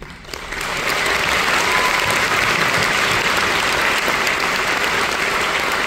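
Audience applauding, swelling up within the first second and then holding steady.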